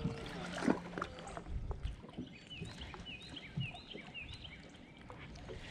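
Faint outdoor ambience on the water: small birds chirping in short, repeated, downward-falling calls over a low rumble, with a few light knocks.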